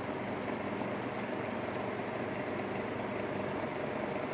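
Steady background hiss of room noise, even throughout with no distinct strikes.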